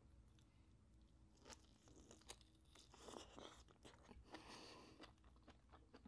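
Faint eating sounds: chewing boiled lobster meat with small clicks and crackles as the lobster shell is picked apart by hand.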